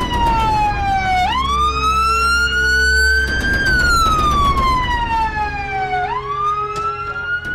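Ambulance siren in a slow wail: the pitch falls, rises again about a second in, falls from about three and a half seconds in, and climbs once more near the end, over a low vehicle rumble.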